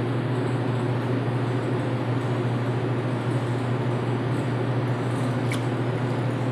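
Steady ventilation hum of an air-conditioning unit, with one faint click about five and a half seconds in.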